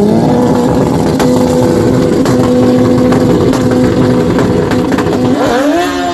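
Motorcycle engine revved up and held at a steady high rpm, then dipping and climbing again near the end.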